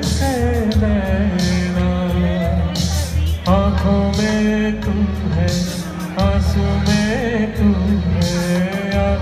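A man singing a film song into a handheld microphone over recorded backing music, both loud through a PA system, with a steady bass line and regular percussion beats.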